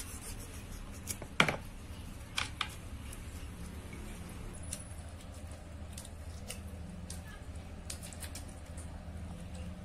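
Kitchen knife cutting limes and knocking against a plastic bowl: one sharp knock about a second and a half in, two more a second later, then scattered lighter clicks over a steady low hum.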